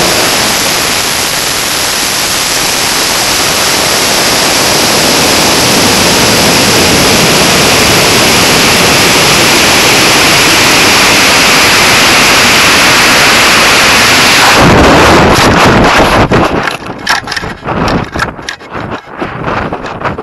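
Steady rush of air over a high-power rocket's onboard camera as it coasts upward after motor burnout. About fourteen seconds in the noise surges at the apogee deployment, where the main parachute came out early, and then turns into choppy, gusty wind buffeting as the rocket swings under the parachute.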